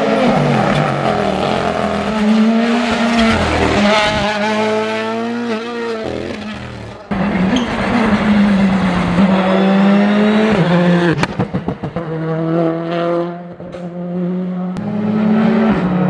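Rally cars at full attack: a Toyota GR Yaris Rally1's turbocharged 1.6-litre four-cylinder revving hard and dropping back through quick gear changes, then a Citroen C3 Rally2's engine doing the same, with a quick run of sharp cracks about eleven seconds in. Near the end a Ford Fiesta Rally2's engine comes up.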